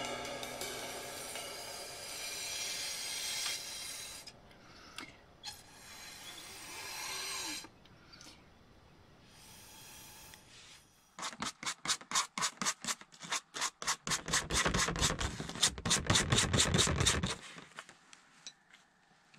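A paintbrush rubbing and scratching on paper, then a fast run of back-and-forth scrubbing strokes, about five a second, for several seconds past the middle.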